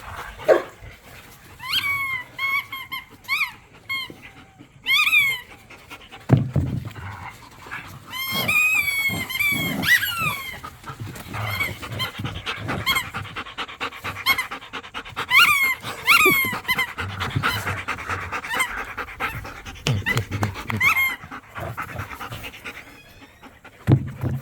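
Dogs panting rapidly during rough play, with repeated short, high-pitched squeaks that bend in pitch and a few low thumps.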